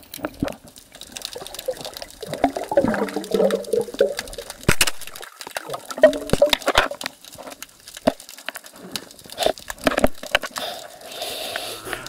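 Water sloshing and gurgling heard underwater, with many irregular sharp clicks and knocks.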